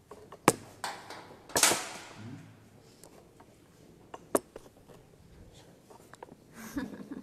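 Handling noises from metal instruments: a few sharp clicks and clinks, the loudest about half a second in and again about four seconds in, with a short rustle around a second and a half in.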